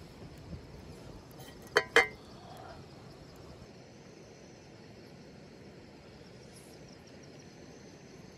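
Crickets chirring steadily in the night background, with two short sharp knocks close together about two seconds in.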